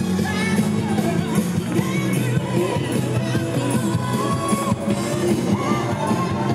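Pop-style music with a singing voice.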